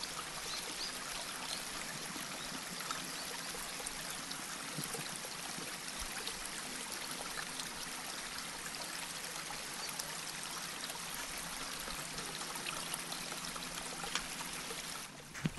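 Creek water running steadily, an even rushing flow, with a few faint clicks over it.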